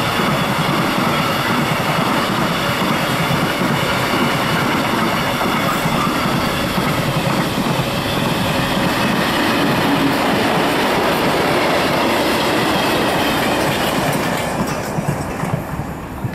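Container wagons of a freight train rolling past, their wheels running steadily over the rails, with a few thin high tones riding on the rumble. The sound dies away over the last two seconds.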